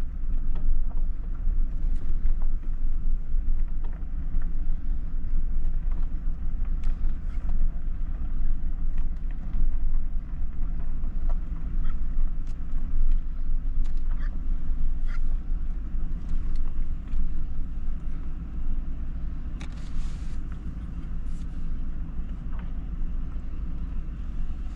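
A vehicle's engine running slowly under a steady low rumble of engine and road noise as it backs up a road, with a few light ticks over it.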